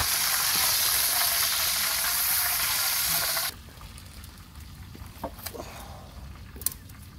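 A rack of beef ribs sizzling loudly as it fries in hot oil in a wide pan. About three and a half seconds in, the sizzle cuts off. What follows is quiet, with a few sharp clicks as the ribs are lifted with tongs onto a metal platter.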